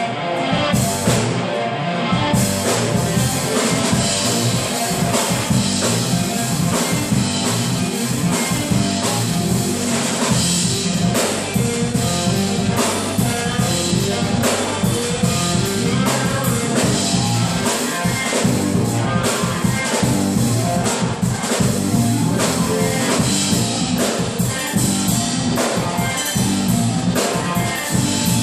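Small rock band playing live: electric guitar and bass guitar through amplifiers, over a drum kit keeping a steady beat.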